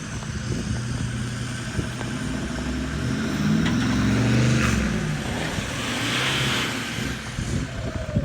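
Toyota LandCruiser 79 series V8 turbo-diesel engine revving up under load for a couple of seconds, then easing off, with the turbo whistling.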